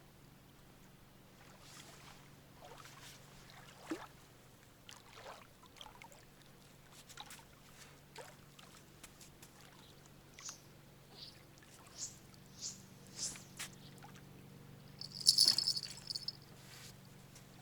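Water dripping and trickling in small separate drops, with a louder splashing burst about fifteen seconds in.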